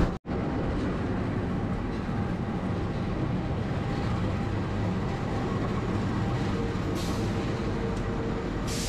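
KAI CC206 diesel-electric locomotive running light past at low speed, its diesel engine and wheels giving a steady low rumble, after a split-second gap at the start. A steady hum joins about two thirds of the way through, and two short hisses of air come near the end.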